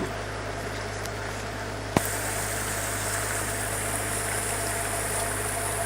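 Canal tour boat's motor running steadily, with a single click about two seconds in, after which a hiss is added to the steady sound.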